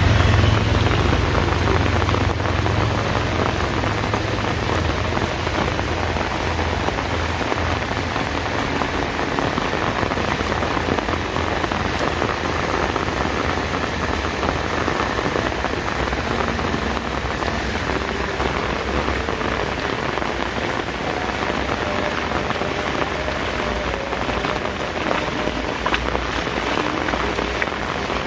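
Heavy rain pouring down: a steady, dense hiss of drops striking surfaces. A low rumble runs under it for the first several seconds, then fades.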